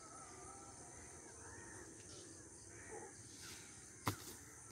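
Faint cawing of crows in the background. About four seconds in, a single sharp thud as a boy jumps down from a low concrete wall and lands on the ground.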